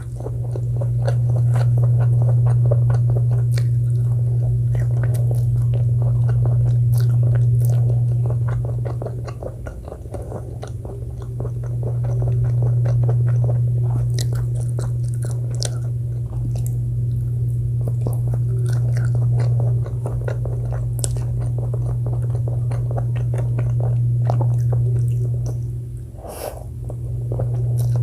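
Close-miked eating sounds: biting, chewing and crunching, with many small wet mouth clicks. Under them runs a loud steady low hum, which dips briefly twice.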